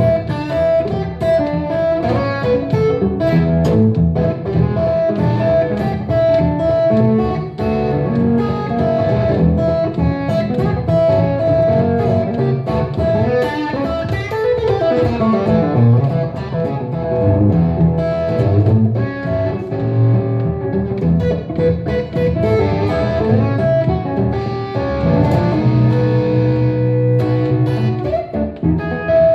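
Telecaster electric guitar played through an amplifier, improvising blues lead lines: a steady flow of single notes and short phrases that keep returning to one high note.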